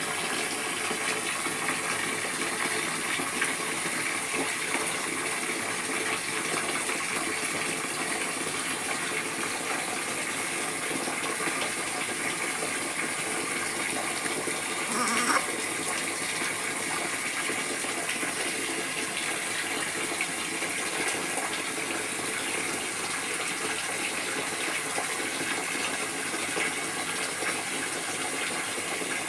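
Steady rush of running water, with one brief louder sound about halfway through.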